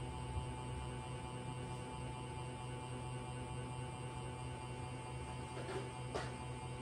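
Steady low electrical hum with a faint high tone over it, and a couple of faint short sounds near the end.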